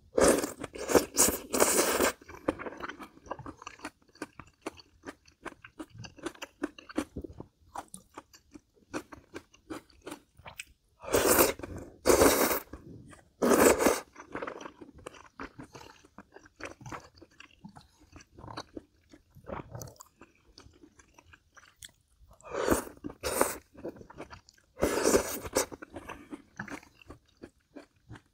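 Close-miked eating of jjamppong, spicy Korean seafood noodle soup: three loud bouts of slurping from the bowl, at the start, around the middle and near the end, with soft wet chewing between them.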